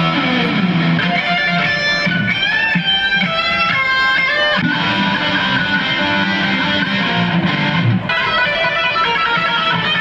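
Electric guitar playing a lead line, with high sliding, bent notes in the middle.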